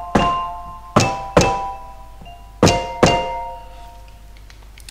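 A Pearl Malletstation EM1 electronic mallet controller is struck with mallets, triggering a software tuned-percussion sound. There are five strikes, mostly in pairs about half a second apart, each sounding several notes at once as a chord that rings and fades, with a dull thunk at each hit. The chords show the controller registering simultaneous hits.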